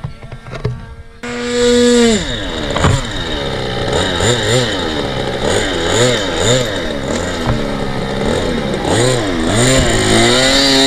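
Small fuel-burning model-airplane engine running on the ground. Its steady high note drops away about two seconds in, then it is throttled up and down over and over, about twice a second.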